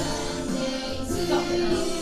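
Music with singing, sustained pitched notes held over a steady backing.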